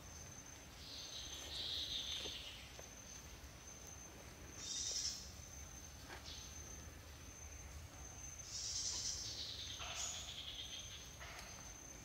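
Swamp forest ambience: a steady high-pitched insect drone, with wild animal calls rising over it three times, about a second, five seconds and nine seconds in. A few faint short knocks come near the end.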